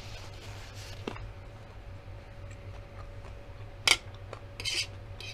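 Quiet chewing, then a fork clicks sharply against a metal baking tray about four seconds in and briefly scrapes through the food on it.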